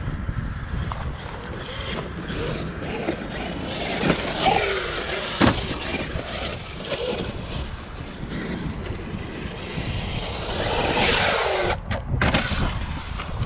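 Brushless electric motor of a Traxxas UDR RC truck whining up and down in pitch as it accelerates and slows over rough ground, over a low rumble. A sharp knock about five and a half seconds in.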